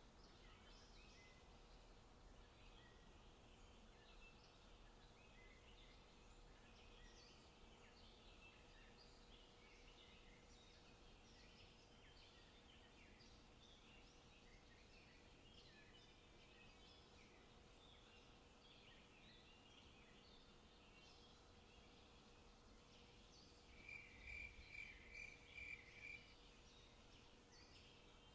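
Faint forest birdsong: many small birds chirping and twittering throughout, with a louder run of about six quick, evenly spaced notes near the end. A faint steady hum lies underneath.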